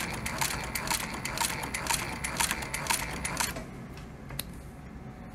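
Singer 153W103 walking-foot cylinder-arm sewing machine stitching leather, its needle and feed clacking at about three to four stitches a second, then stopping about three and a half seconds in. A couple of single light clicks follow near the end.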